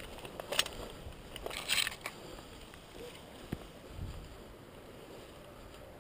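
Dense bracken fronds rustling and swishing as someone pushes through them on foot. The loudest swishes come about half a second in and again around two seconds in, then the rustling goes on more softly.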